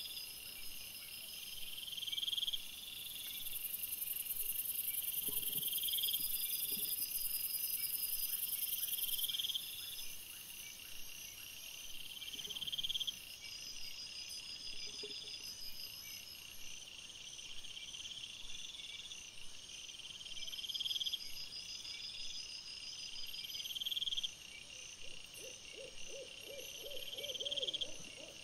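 Night insects, crickets or katydids, chirping in high repeated phrases that swell every couple of seconds over a steady high hum, with a short run of low grunts from the feeding wild boar near the end.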